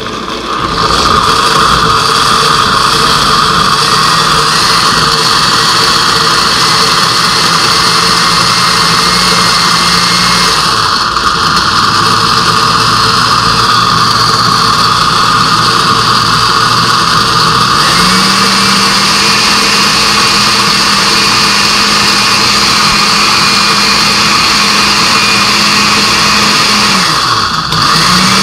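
Countertop blender running, grinding coconut pieces with water into coconut milk. The motor's pitch drops about a third of the way in and rises again past halfway, then cuts out for a moment near the end and starts again.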